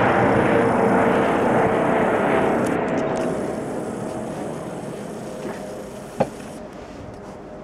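Helicopter passing low overhead and flying off: the rotor and engine noise, with a steady whine running through it, fades gradually over about five seconds. A single sharp click about six seconds in.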